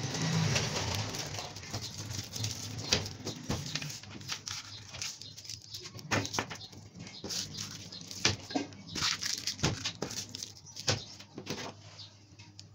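Plastic candy wrappers crinkling, with irregular small clicks as wrapped hard candies and lollipops are pushed around and set down on a tabletop.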